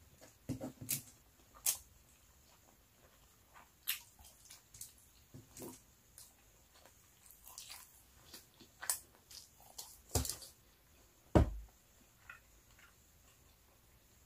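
Close-miked eating sounds: scattered short wet smacks and clicks of a mouth chewing leftover rice picked off a foil tray by hand. A single loud low thump comes about eleven seconds in.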